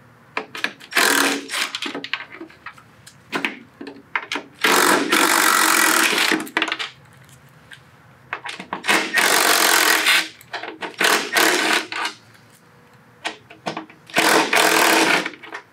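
Cordless drill/driver with an Allen bit running in a series of short bursts, the longest about two seconds, with clicks between runs, as it backs out the 3/16-inch Allen screws that hold a motorcycle headlight.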